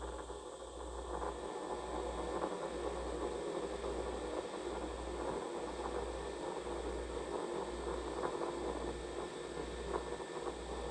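Steady rushing rumble of Starship SN9's two Raptor rocket engines firing during ascent.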